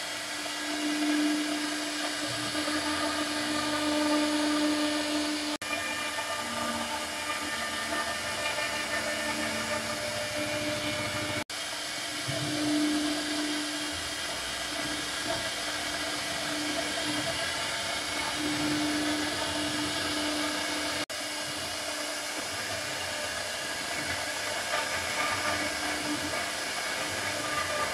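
CNC router spindle running at high speed while the bit cuts grooves into a wooden panel: a steady motor whine over rough cutting noise, dropping out for an instant three times.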